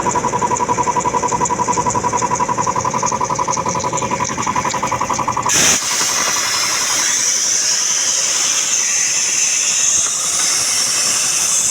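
Puma 2090 piston air compressor running with a rapid, even pulsing beat, then stopping suddenly about halfway through, followed by a steady high hiss of escaping air.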